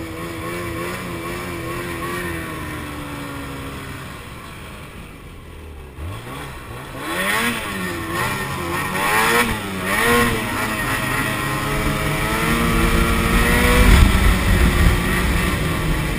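Ski-Doo snowmobile engine running under a rider's throttle: it eases off and drops to a low, quieter note about a quarter of the way in, then revs back up with its pitch wavering up and down as the throttle is worked, and pulls steadily louder toward the end.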